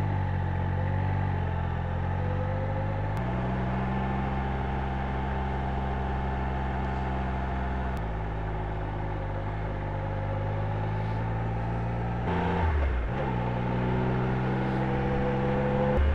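Triumph Trophy 1200SE's three-cylinder engine pulling the bike away and up a hill after a hill start, running steadily under load. Its note shifts abruptly about 3, 8 and 12 seconds in, with road and wind noise underneath.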